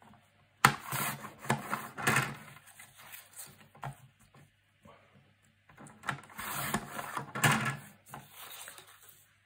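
A sheet of paper sliding and rustling across a paper trimmer's bed as it is positioned under the cutting rail, in irregular bursts with a sharp click about half a second in.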